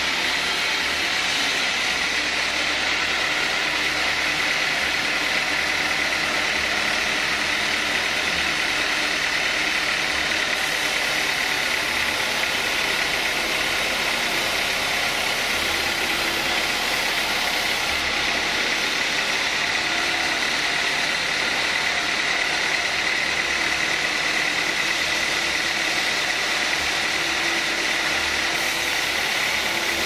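Band sawmill running steadily with its blade sawing through a teak log, a dense machine noise with a steady high-pitched whine through it.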